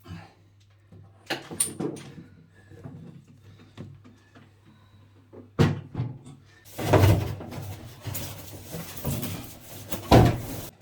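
A few sharp knocks and clicks, then several seconds of rustling clatter ending in a heavy thud, like things being handled and a door or lid shutting.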